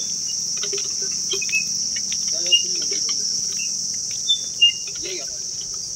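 Insects droning steadily at a high pitch, with a few sharp clicks about two and a half and four and a half seconds in.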